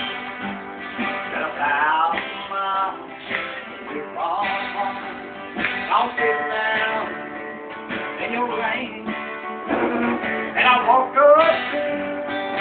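Acoustic guitars strummed and picked together, playing the instrumental opening of a country song. A lead line with sliding, bending notes plays over the chords.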